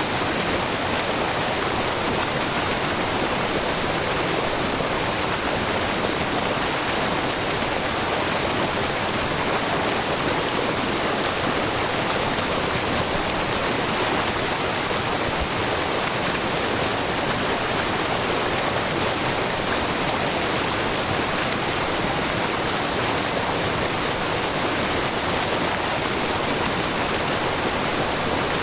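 A low, wide curtain waterfall of many thin streams of spring water spilling over a rock face into a babbling brook, making a steady, even rush of water with no breaks.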